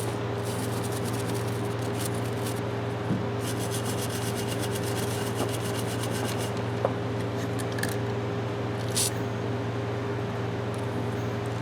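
Rusted adjustable wrench being worked open: steady rubbing and scraping of the stuck worm screw and jaw, with a few light taps, over a steady low hum.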